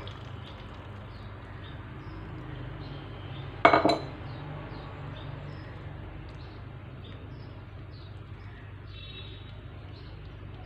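Silicone spatula stirring wet ingredients into cocoa-flour cake batter in a bowl, with soft scraping, and one sharp clink of dishware about four seconds in. A steady low hum runs underneath.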